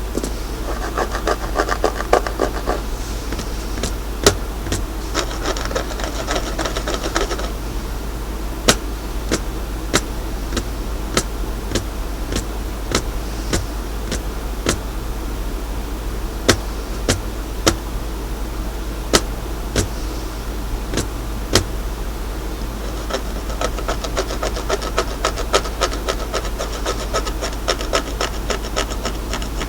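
ASMR tapping and scratching at once: sharp single taps every second or two, with stretches of fast scratching around one to three seconds in, again around five to seven seconds, and through the last several seconds.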